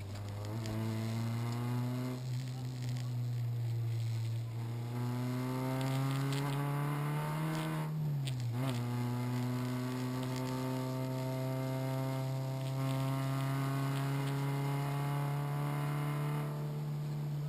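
Renault Clio RS rally car's four-cylinder engine heard from inside the cabin, pulling hard at high revs. The pitch climbs slowly, dips briefly about eight seconds in and picks up again, then holds steady.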